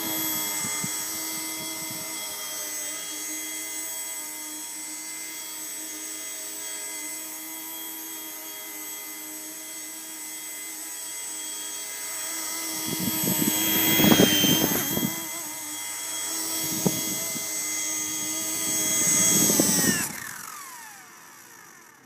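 Blade mSR X micro RC helicopter's small electric motors and rotor whining with several steady high tones in flight, swelling louder around the middle and again near the end. The power then cuts and the whine falls away as the rotor spins down.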